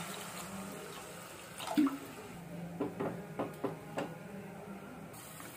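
Water pouring into a metal pot of cooked tomato mixture, stopping about a second and a half in. A wooden spatula then stirs the mixture, knocking against the pot several times.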